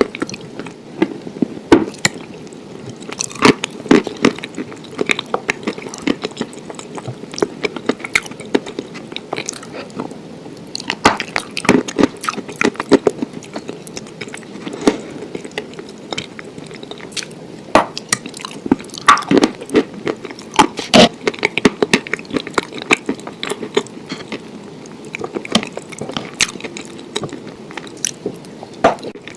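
Close-miked eating: a person chewing and biting food, with frequent irregular sharp crunchy clicks and wet mouth sounds.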